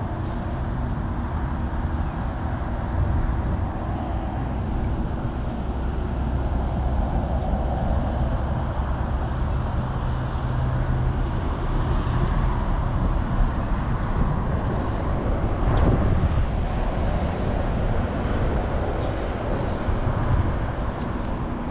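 Steady low rumble of vehicle traffic outdoors.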